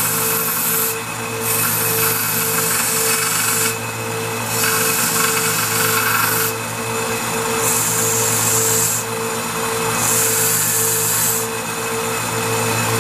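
Bench belt grinder running steadily while a stainless steel bolt is pressed against the belt to round over its end. The high grinding hiss comes in passes of about two seconds, broken by short lifts, over the motor's constant hum.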